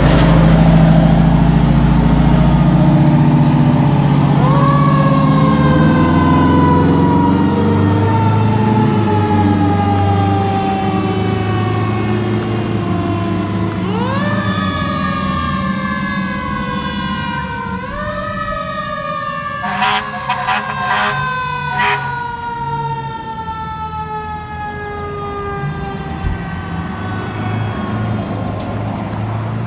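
Fire engine pulling away, its engine's low drone fading as the truck leaves. A siren winds up sharply three times, each time sliding slowly back down in pitch. There are several short horn blasts about two-thirds of the way through.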